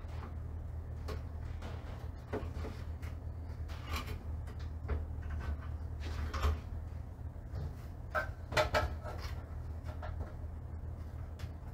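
Scattered plastic clicks and knocks from a small breaker enclosure being handled and worked with a screwdriver, with a quick cluster of clicks about two thirds of the way through. A steady low hum runs underneath.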